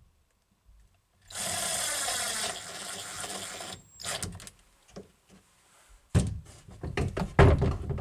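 Power drill running for about two and a half seconds as it drives a screw, followed by a series of clicks and knocks from handling the hardware and tool.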